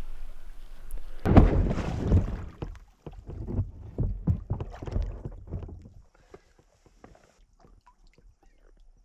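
Sea kayak on the water: splashing and sloshing against the hull with knocks, loud for the first few seconds, then dying down to faint drips and ticks about six seconds in.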